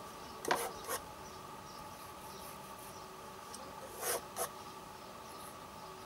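Faint scrapes of a steel palette knife on an oil-painted canvas: two short strokes about half a second in and two more at about four seconds, over a steady faint hum.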